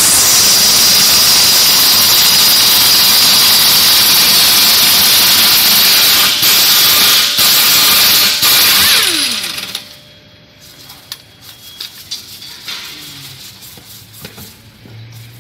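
Pneumatic impact wrench running loud and steady on a rear wheel hub nut for about nine seconds, with a few brief breaks, then spinning down with a falling pitch. This is the hub nut coming off so the drum and hub can be removed for a rear wheel bearing replacement. After that there are only light metal clicks as parts are handled.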